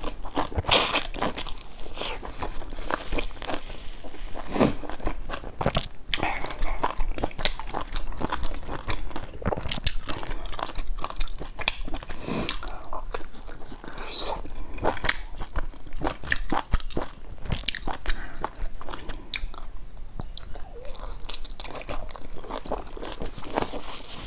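A person biting into and chewing soft steamed buns up close: a continuous run of mouth clicks and smacks while she chews.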